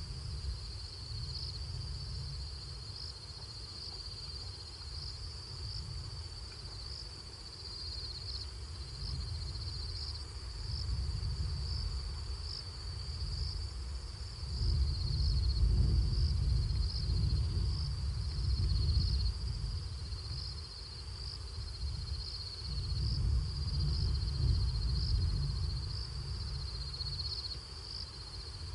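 Night chorus of crickets: a steady high trill with sharper chirps about once a second. A low rumble rises and falls underneath.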